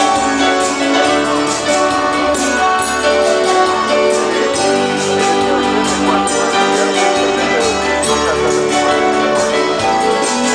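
Band music with held notes, a keyboard-like melody over a steady beat, played for dancing.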